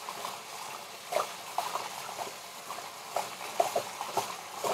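Tap water trickling into a bowl of frozen shrimp being rinsed to wash off the freezing agent: a faint hiss with irregular small plinks and drips.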